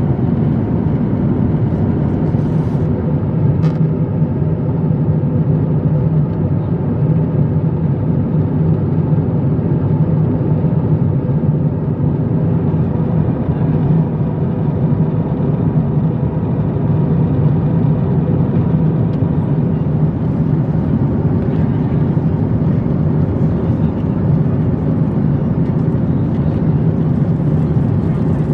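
Steady cabin drone of an Airbus A350-900 in cruise: its Rolls-Royce Trent XWB engines and the airflow over the fuselage make an even, low rushing noise that does not change. A couple of faint clicks come a few seconds in.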